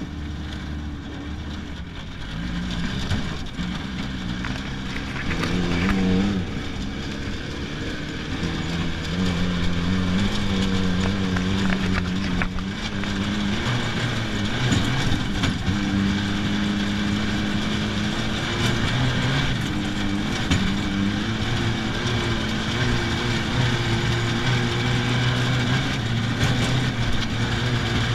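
Safari race car's engine heard from inside the cockpit, driven hard: its pitch climbs and drops back again and again as the driver works through the gears, over a steady rush of road and wind noise.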